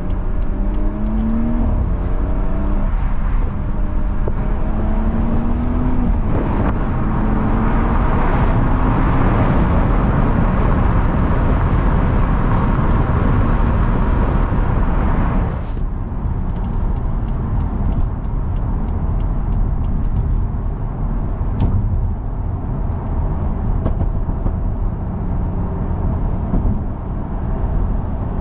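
BMW 340i's tuned, decatted B58 turbocharged straight-six accelerating hard. The engine note climbs in pitch through two gears, then runs loud with a heavy hiss. About halfway it drops off suddenly as the throttle is lifted, and the car runs on more quietly with a few faint crackles on the overrun.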